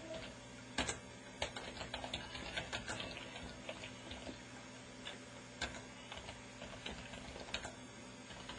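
Typing on a computer keyboard: irregular runs of key clicks, busiest in the first few seconds.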